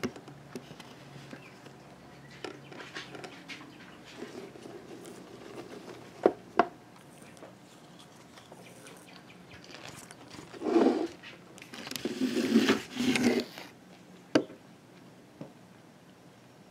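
Scattered sharp taps and rustling as a long-haired cat moves about on a wooden desk beside a piece of popcorn, with louder brushing noises past the middle as its fur rubs close to the microphone.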